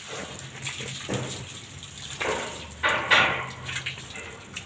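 Water from a garden hose spraying over a wet dog's coat and splashing onto brick paving, with louder surges of splashing about a second in, just after two seconds and around three seconds.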